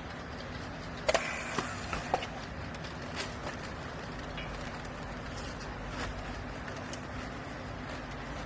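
Steady machine hum from a double chamber textile baler running, with a few sharp metallic knocks, the loudest a double knock about a second in.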